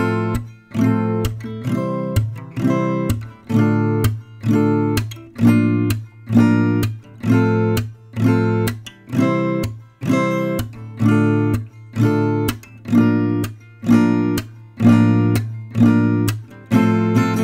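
Background music: an acoustic guitar strummed in a steady, even rhythm of chords.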